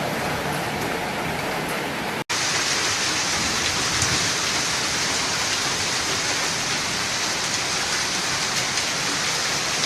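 Heavy storm downpour falling hard on surfaces, a steady rushing hiss. It drops out for a split second about two seconds in, after which it sounds brighter and harder.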